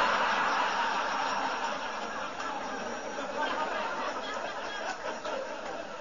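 Live comedy audience laughing in response to a joke's punchline, loudest at first and slowly dying away.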